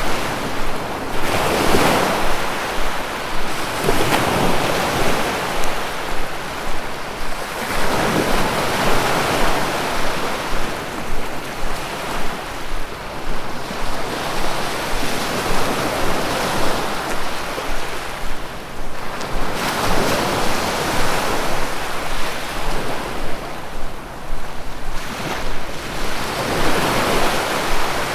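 Sea waves breaking and washing onto shore, a steady surf rush that swells and eases every few seconds.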